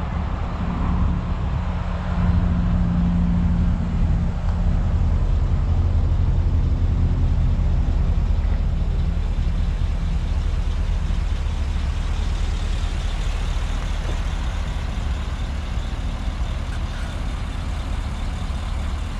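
Isuzu NPR HD gas truck's 6.0-litre V8 idling steadily, a low even hum that grows a little louder about two seconds in.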